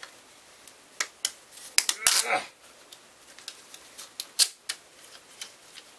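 Scattered clicks and knocks of hands handling a 20 mm big-bore air rifle fitted with a tactical chassis stock, with a short scrape about two seconds in, the loudest sound.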